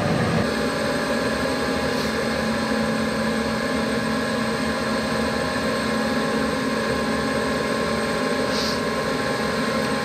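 Gas furnace running with a steady mechanical hum of several steady tones from its motors, the tones shifting slightly about half a second in. A faint tick about two seconds in and a short faint hiss near the end.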